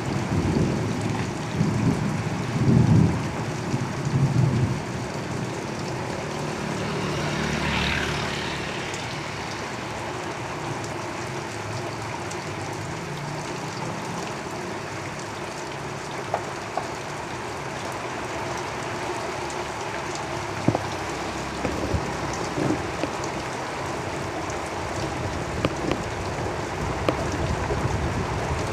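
Steady heavy rain drumming on a tin roof, with deep low rumbles in the first five seconds. About eight seconds in, a vehicle swishes past on the wet road, swelling and fading; scattered sharp drip ticks stand out later on.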